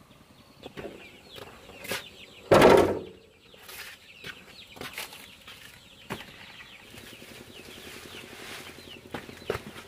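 Chickens and chicks peeping and clucking faintly, with scattered knocks and a loud rustling burst about two and a half seconds in.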